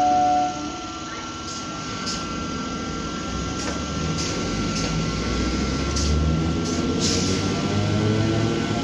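Old EMU local train pulling out of a station: a loud horn note cuts off about half a second in, then wheels click over rail joints while a low rumble and a rising motor whine build as the train gathers speed.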